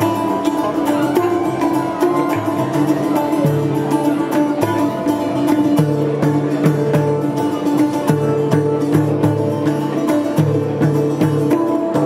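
Improvised folk music: a kopuz, a Turkic long-necked lute, being plucked in a steady rhythm over the ringing, sustained notes of a hang drum (handpan) struck by hand, with a frame drum beaten along.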